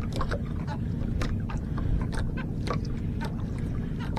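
A small engine running steadily as a low rumble, with scattered light clicks and knocks on the boat.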